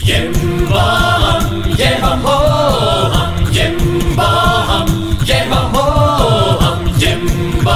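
Background music: a song with sung vocal phrases over percussion.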